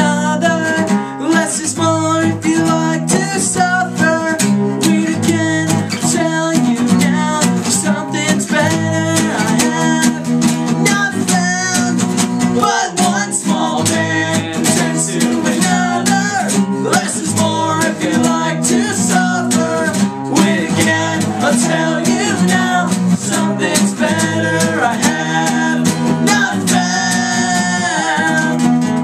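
Acoustic guitar music, strummed steadily, with a sung melody over it.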